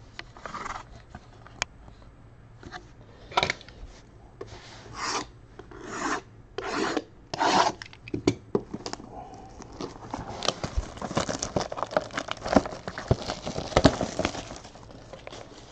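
Shrink-wrapped cardboard trading-card boxes scraping and rubbing as they are lifted and slid off a stack: a handful of separate scraping strokes, then a denser, crinkly run of scraping near the end as one box is pulled out.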